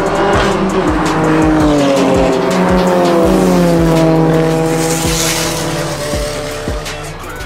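Race car engine running hard on track, cutting in suddenly at the start, its pitch holding, then climbing and dipping as it revs up and down. Background music with a steady beat plays under it.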